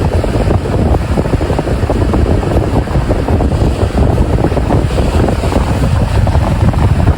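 Loud wind buffeting the microphone, a rumbling, gusting noise that rises and falls unevenly and has no steady engine tone.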